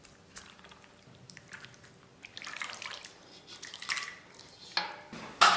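Braised pork intestine and chicken stew being dished out of the pot: liquid dripping and splashing, with soft clinks of utensil on cookware.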